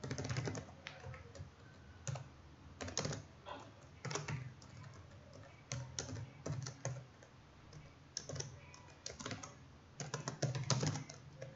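Computer keyboard typing in short irregular runs of keystrokes with brief pauses between them.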